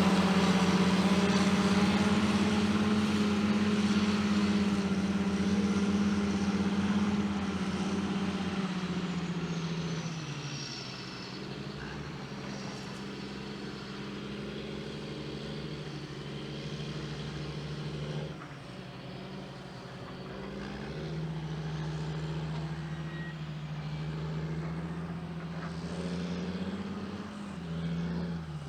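Caterpillar 627G twin-engine scraper's diesel engines running hard, then easing off about a third of the way in as the pitch and loudness drop, and building up again later on.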